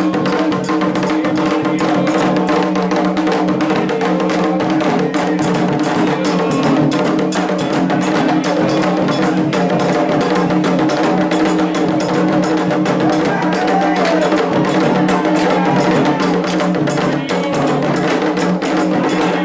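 Afro-Brazilian Candomblé ritual music: hand drums and sharp percussion play a fast, steady beat. Voices sing over it in places, most clearly about two-thirds of the way through.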